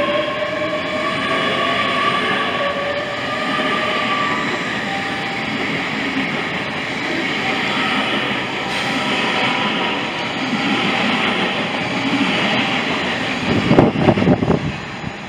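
Hitachi Class 800 train running past along the platform: steady rumble of wheels on the rails with a traction whine that rises slightly and fades over the first few seconds. Near the end comes a brief, louder bout of irregular low buffeting.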